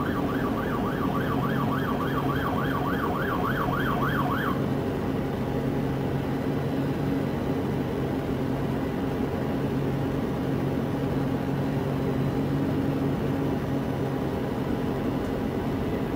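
Emergency-vehicle siren in a fast yelp, rising and falling about three times a second, that cuts off about four seconds in. A steady low hum carries on underneath.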